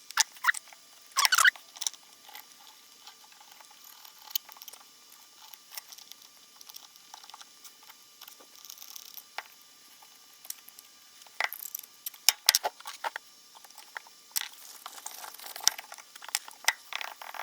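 Light clicks, scrapes and rustles of a 0.5 mm thermal pad sheet being cut free-handed into thin strips and handled, with a few sharper ticks, the loudest about a second in and around twelve seconds in.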